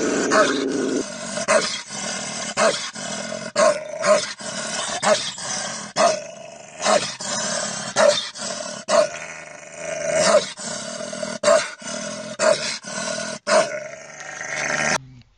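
A large dog barking and growling aggressively, with harsh barks about once a second over continuous snarling.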